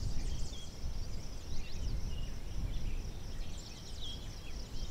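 Small birds chirping and twittering, many short high calls, some sliding up or down in pitch, over a steady low rumble.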